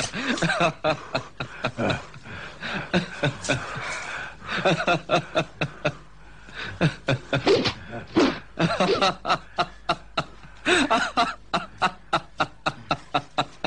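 Male laughter, a long run of rhythmic ha-ha-ha pulses, breaking off briefly about six seconds in and then starting up again.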